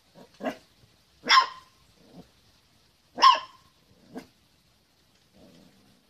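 Puppy barking: two loud, sharp barks about two seconds apart, with several softer short barks before, between and after them.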